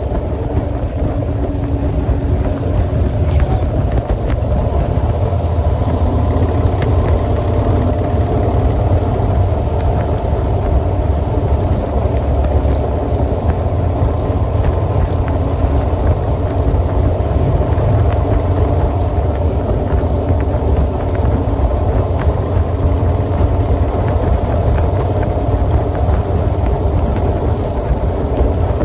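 Motorcycle engines running steadily at highway cruising speed, heard from a moving motorcycle with wind and road rush on the microphone.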